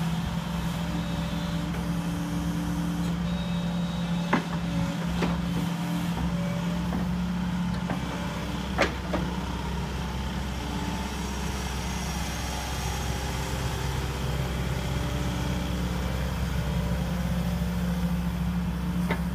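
JCB JS130LC 13-ton excavator's diesel engine running steadily, with higher tones that come and go over it and a few sharp metallic clanks.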